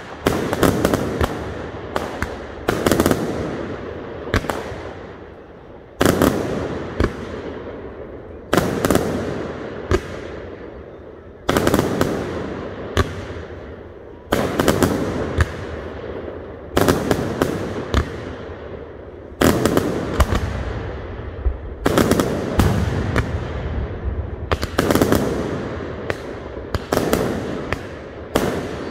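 Fireworks display: aerial shells bursting one after another, a loud bang about every two and a half seconds, each fading away in a rumble, with smaller pops and crackles between them.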